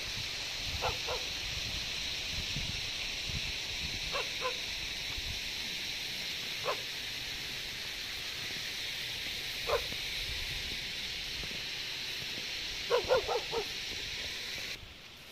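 A dog barking: short single and double barks a few seconds apart, then a quick run of four or five barks near the end. Under the barks is a steady high hiss that cuts off shortly before the end.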